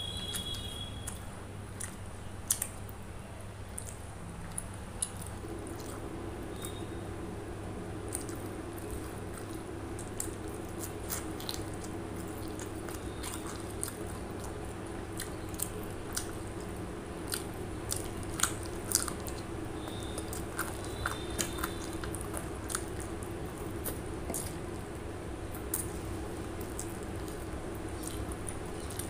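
Close-miked eating: a person biting and chewing chicken leg pieces in masala curry with rice, with many short wet mouth clicks and smacks.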